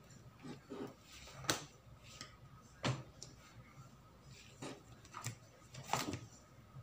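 A kitchen knife tapping and scraping against a plastic cutting mat while soft bread dough is cut into portions: scattered light taps, four or five of them sharper.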